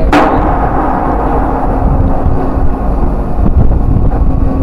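Wind buffeting the microphone over a steady machinery hum on a ship's deck. Just after the start comes one sharp metallic clank that rings briefly.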